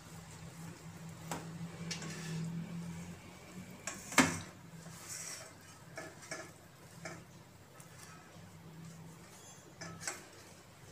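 Metal plates clinking and knocking now and then as steamed idlis are lifted off the cloth on a perforated idli-steamer plate and set on a steel plate. One sharp clink about four seconds in is the loudest. A low steady hum runs underneath.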